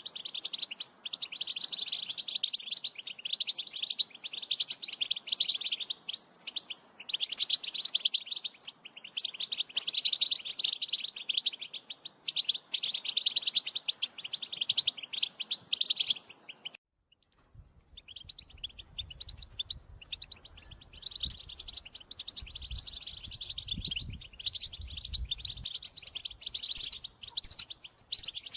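European goldfinch twittering in fast, dense chatter, the kind of call played to a caged goldfinch to stir it into song. The chatter breaks off briefly just past halfway, then resumes with a low rumble underneath for several seconds.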